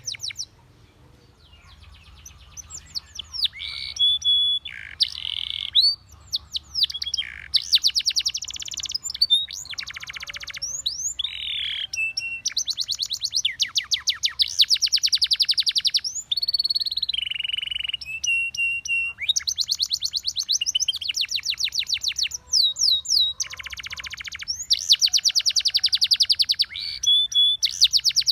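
Spanish Timbrado canary singing. Its phrases alternate fast trills of rapidly repeated notes with held whistled notes and downward-slurring notes, and the song picks up after a short lull at the start.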